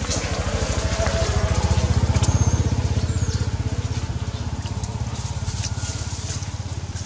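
An engine running steadily with a fast, low pulsing, loudest about two seconds in. A couple of brief high squeaks come through over it.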